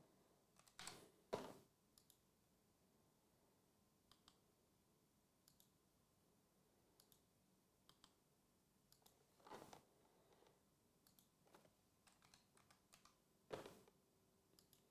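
Faint, scattered clicks and taps of fingers handling a cardboard trading-card hobby box, with a few louder short scuffs of the box against hands and table.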